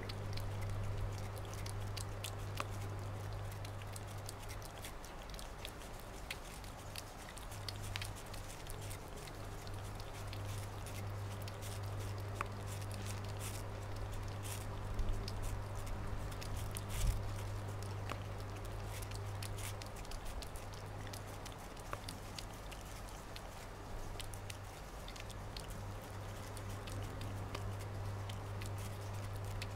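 A long-haired tabby cat chewing and licking at a slice of watermelon held out by hand: irregular small wet clicks, a couple of them louder about halfway through, over a steady low hum.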